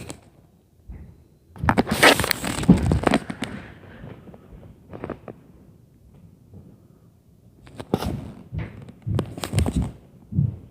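Several clusters of sharp bangs and crackling knocks with quiet gaps between: a long run of them about two seconds in, a short one in the middle, and two more near the end.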